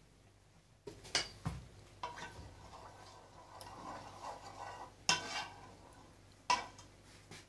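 A spoon stirring and scraping through thick sauce in a metal pan, with a few sharp clinks of the spoon against the pan, the loudest about five and six and a half seconds in.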